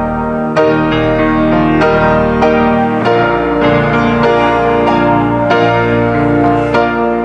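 Piano playing slow chords, each struck roughly every half second and ringing into the next: an instrumental church postlude.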